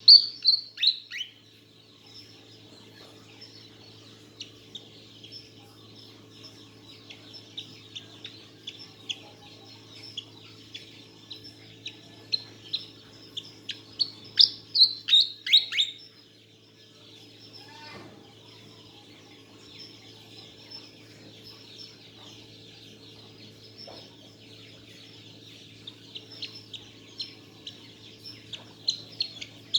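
A fantail singing: bursts of quick, high, falling chirps near the start, in the middle and near the end, with fainter twittering between them. A steady low hum runs underneath.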